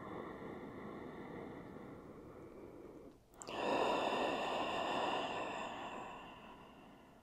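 A woman takes a deep cleansing breath: a long, quieter inhale of about three seconds, a brief pause, then a louder exhale of about three and a half seconds that fades away.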